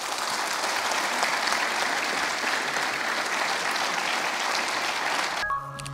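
Audience applauding, dense and steady, stopping about five seconds in. A short held tone follows right after.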